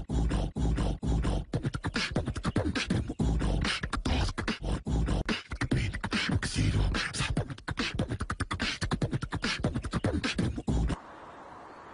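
Rapid rhythmic percussive vocal sounds in the manner of beatboxing, with deep thumps among sharp clicks. The sounds cut off abruptly about eleven seconds in.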